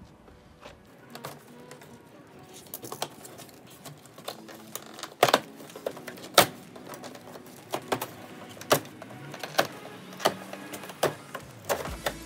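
Tall cardboard shipping box being torn open by hand: a string of sharp cardboard snaps and rips as the tape and flaps are pulled apart, loudest about five and six seconds in.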